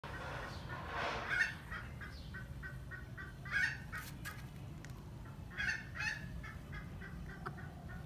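Silver Sebright bantam chickens calling: a run of short clucks, about four a second, broken by louder squawks about a second in, at about three and a half seconds, and twice near six seconds.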